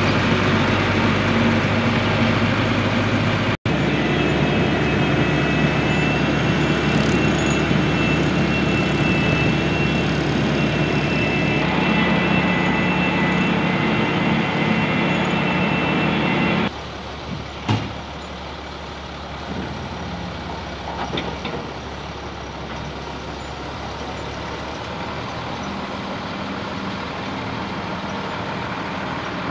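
Wheel loader's diesel engine running steadily while towing a truck, loud and close at first. About 17 s in it drops abruptly to a quieter, more distant engine sound, with a single knock just after.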